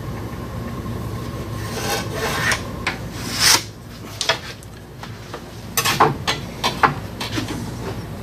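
Pencil scratching on a wooden board while marking an angle line against a bevel square: one longer scrape about three and a half seconds in, then several short strokes or light taps around six to seven seconds.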